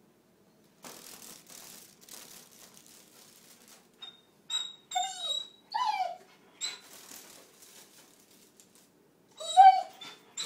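German Shorthaired Pointer whimpering: a few short high whines that slide down in pitch, the loudest near the end, with brief squeaky notes between them. Before the whines comes a stretch of soft rustling.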